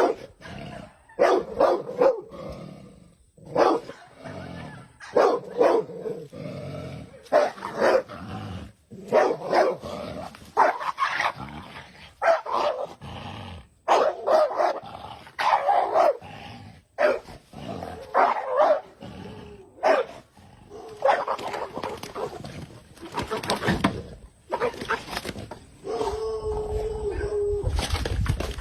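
A dog barking repeatedly, in short bursts every second or so, with one longer held howling note near the end.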